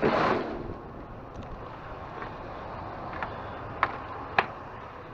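Rummaging through discarded boxes: a short loud rustle at the start, then steady background noise, with two sharp clicks or knocks near the end.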